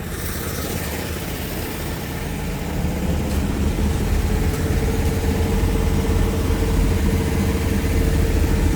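An engine running steadily at idle, a low pulsing rumble that grows slightly louder, with a faint steady whine joining it about halfway through.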